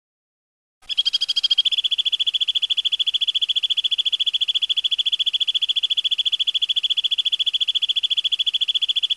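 A high-pitched rolling trill of fast, evenly repeated pulses that starts about a second in and then holds steady without a break. It is the sharp, harsh 'tembakan ngerol' trill played as masteran for white-rumped shamas to copy.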